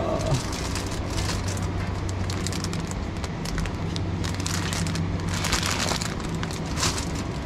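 Plastic food packaging crinkling and rustling as it is handled, in several bursts that are busiest about five to six seconds in and again just before seven, over a steady low hum.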